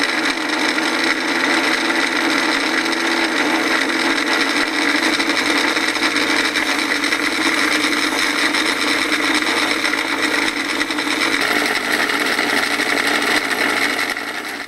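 Home-built ironless axial-flux brushless DC motor running on an R/C speed controller, a steady whine and hum.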